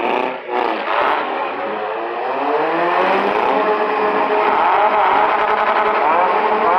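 Several four- and six-cylinder demolition derby car engines revving hard together, their pitches rising and falling, louder from about two and a half seconds in. A few sharp knocks come in the first second.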